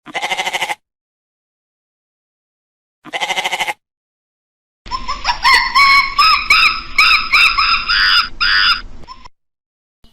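Animal calls: two short quavering calls about three seconds apart, then a run of repeated arched calls for about four seconds.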